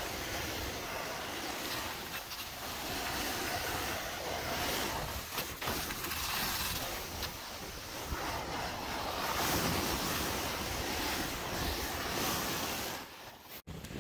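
Splitboard sliding downhill over snow: a continuous rushing hiss of the board on the snow, mixed with wind noise on the microphone. The sound cuts out briefly near the end.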